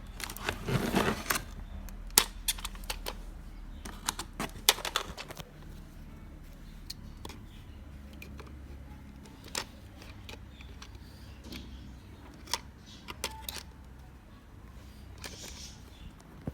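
Packaging being handled during an unboxing: irregular clicks, taps and rustles of cardboard and plastic, busiest in the first five seconds, then a few scattered clicks and a short rustle near the end.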